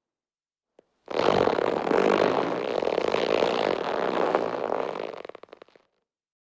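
A long, rattling fart sound effect that starts about a second in and breaks up into a few sputters as it dies away.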